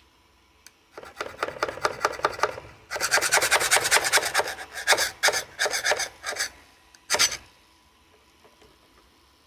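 A blade scraping and prying at a PETG 3D print in quick repeated strokes, a few per second, as it tries to lift a layer printed on top of the part. The scraping starts about a second in, is most intense from about three seconds in, and stops a little after seven seconds.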